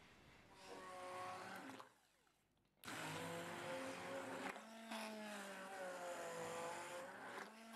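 Immersion (stick) blender motor whining as it purées raw pumpkin chunks with eggs, sugar and milk in a glass bowl. It runs briefly about a second in, stops, then runs steadily from about three seconds in, its pitch sagging a little and recovering as the blades work through the pumpkin.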